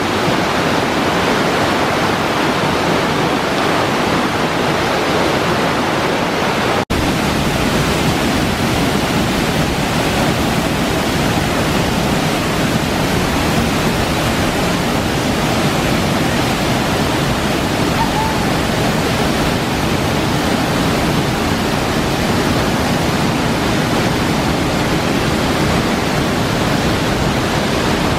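Waterfall rushing: a steady, loud wash of falling water, broken by a momentary drop-out about seven seconds in.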